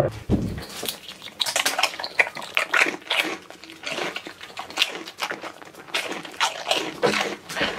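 A goat crunching crisp, cone-shaped corn chips bitten off a person's fingertips: rapid, irregular crisp crunches.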